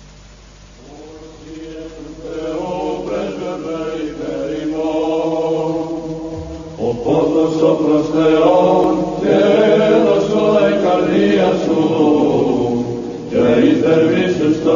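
Byzantine chant sung by a group of voices, starting softly about a second in and swelling louder, with a fuller, stronger passage from about seven seconds on.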